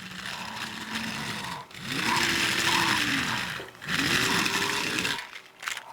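Toy train's small plastic gear train whirring in three bursts of about a second and a half each, each rising and then falling in pitch. It is being tested to see whether it will spin swapped-on flags, which it does not.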